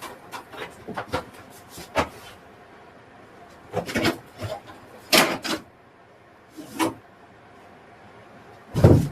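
Scattered knocks, clicks and scrapes of tools and wood being handled, in short irregular clusters; the loudest is a thump near the end.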